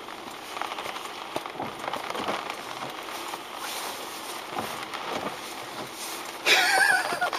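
Rain pattering on a car's roof and windshield, heard from inside the car: a steady hiss with many small taps. Near the end a louder, pitched sound cuts in.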